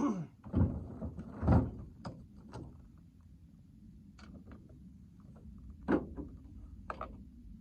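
A few sudden knocks and thuds. The two heaviest come in the first two seconds, then lighter, sharper knocks follow at intervals.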